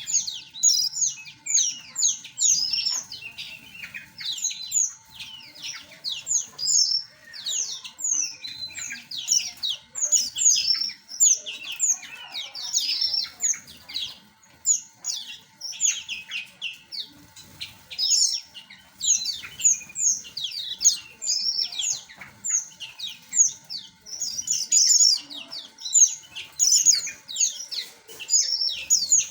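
A flock of small aviary birds chirping without a break: many short, high, quick chirps from several birds overlapping.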